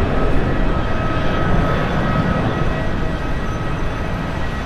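Twin-engine jet airliner climbing out after takeoff: a steady roar of the jet engines with a thin high whine on top, easing off slightly toward the end as it pulls away.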